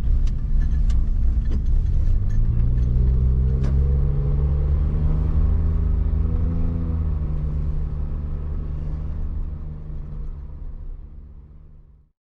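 Suzuki Jimny JB23 under way, with a loud droning hum that rises in pitch over a couple of seconds, holds steady, then fades away. It is an unexplained noise the owner likens to a nearby aircraft or an overtaking car, and it comes under throttle and stops when the foot is lifted off the accelerator.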